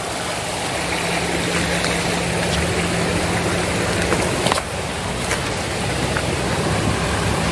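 Shallow rocky stream rushing steadily over stones, with a brief knock about four and a half seconds in.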